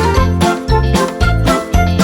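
Upbeat background music with a steady bouncy beat, bass notes and bright tinkling melody notes.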